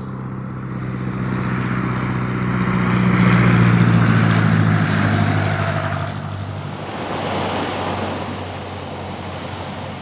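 Single-engine floatplane's piston engine and propeller droning steadily, swelling to its loudest about three to four seconds in and then easing off.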